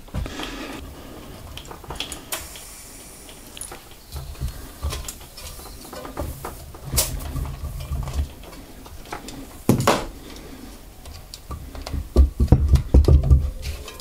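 Handling noises at a bicycle wheel on a workbench stand: scattered clicks and taps as hands work at the wheel, then a run of louder low thumps near the end as the wheel is lifted off the stand.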